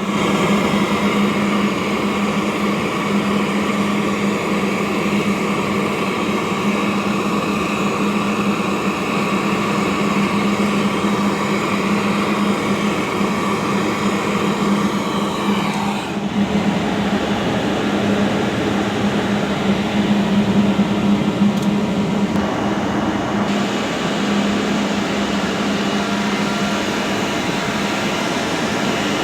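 Air conditioning unit running: a steady mechanical hum with a strong low tone, its higher hiss dropping away about halfway through.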